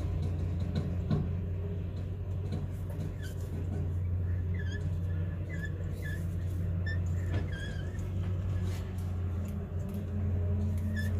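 A motor hums steadily and low, with short, high squeaks coming at irregular moments.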